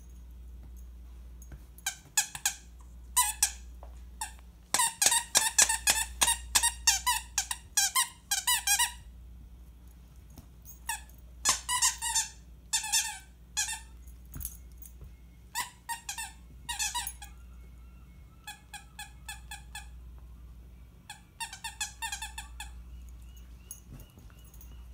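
Squeakers inside plush dog toys squeezed over and over by a German Pinscher puppy's bites. The squeaks come in quick runs of several a second with pauses between them; the longest run starts about five seconds in and lasts some four seconds.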